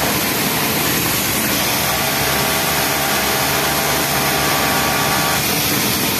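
Yamato industrial flatlock sewing machine running steadily as a T-shirt bottom hem is fed through it, a continuous mechanical whir whose tone shifts slightly about five seconds in.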